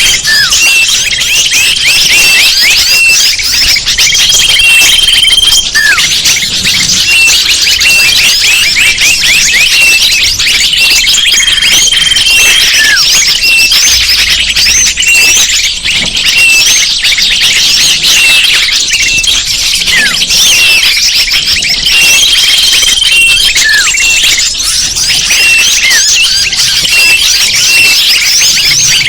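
Bird-lure recording: a dense chorus of many small birds' high-pitched chirps and twitters, with short held whistles and falling whistle notes mixed in. The same pattern comes back about every nine to ten seconds, as a looped lure call does.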